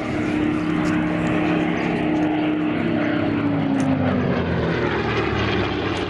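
Vintage single-engine piston propeller warplane flying a low display pass. Its engine runs steadily, and the note falls in pitch a little past halfway as the plane passes overhead.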